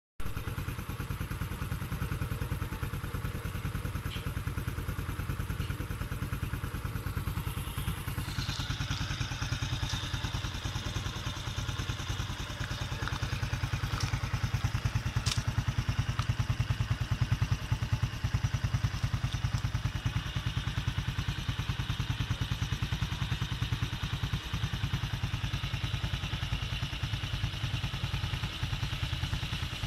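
Honda Wave 110 underbone motorcycle's single-cylinder four-stroke engine idling steadily with a fast, even putter, a little louder in the middle.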